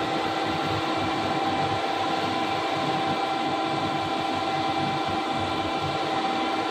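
CNC lathe running steadily: a constant machine hum and whine with several fixed tones over a noisy drone.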